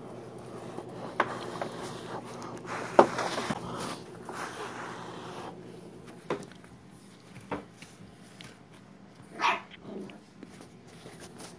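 A puppy making a few brief, faint whimpers, among scattered knocks and rustling from the phone being handled.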